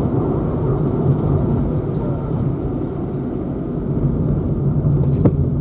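A car driving, its engine and tyre noise making a steady low rumble, with a single sharp click near the end.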